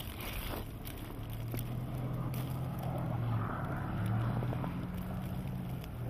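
Cars driving slowly on a snow-covered road: a low engine hum that shifts slightly in pitch, with tyre noise through the snow swelling midway.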